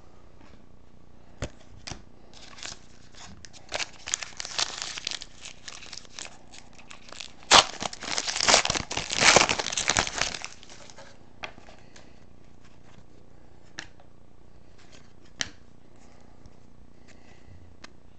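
Trading-card pack wrapper being torn open and crinkled. Scattered light clicks come first, then crinkling builds to a loud burst of tearing and crackling that lasts a few seconds, and trails off into a few clicks of cards being handled.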